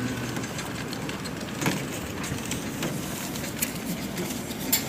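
Steady background hiss and hum of an open street, with a few sharp clicks and knocks, the loudest near the end.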